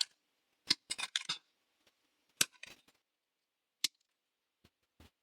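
Cutters snipping 3D-printed plastic pieces off a card-kit frame: a series of sharp, irregularly spaced snips.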